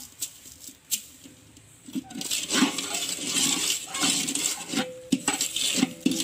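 Sugar being stirred and scraped around a dry metal wok with a ladle: gritty scratching of granules against the pan, with clinks and knocks of the ladle on the metal. A few clicks come early, then the scraping gets dense from about two seconds in.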